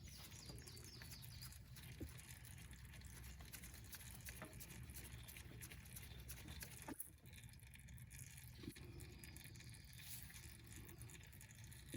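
Faint pattering of engine oil dripping and trickling into a catch pan under a John Deere 6300 tractor, with a few light ticks.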